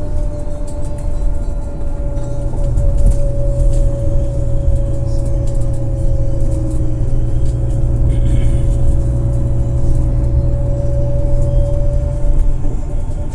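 Road noise inside a moving vehicle: a steady low rumble of engine and tyres, with a steady mid-pitched whine held at one pitch over it.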